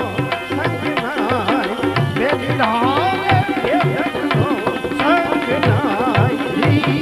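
Gujarati bhajan music: tabla strokes keeping the rhythm under a winding melody that glides up and down.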